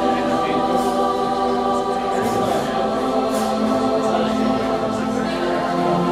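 Music with sustained choir-like voices holding long chords, shifting to a new chord about two seconds in.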